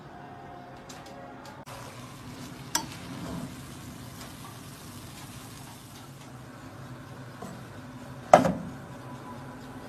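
Bulgur sizzling in a hot pot as it is stirred, with a spoon knocking against the pot twice: once about three seconds in, and more loudly near the end.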